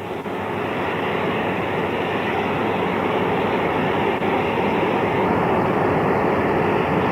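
Safety valve of a New South Wales 38 class 4-6-2 Pacific steam locomotive blowing off steam in a steady hiss that swells over the first second: the boiler is at its full working pressure of about 245 lb.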